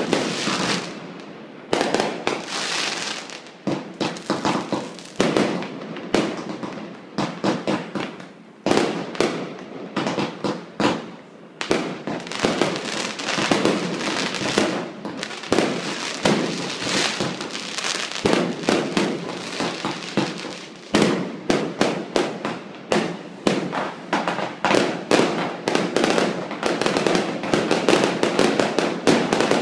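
Fireworks display going off: rapid, near-continuous bangs and crackling. The volleys thin out briefly a couple of times, then build up dense again.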